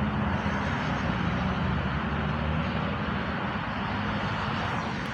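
Steady outdoor rumble of vehicle traffic, with a low engine hum under a constant hiss.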